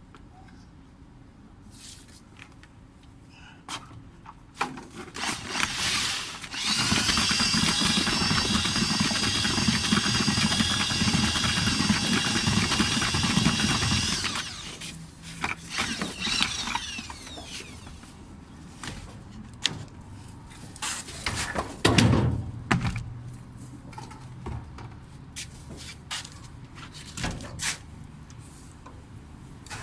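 A handheld power tool's motor runs at a steady speed for about seven seconds, with scattered knocks and clicks of handwork before and after. Later there is a short burst that falls in pitch.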